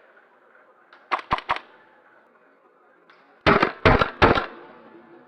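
Airsoft guns firing: three quick, quieter shots about a second in, then three louder shots close by, about 0.4 s apart, a little past the middle.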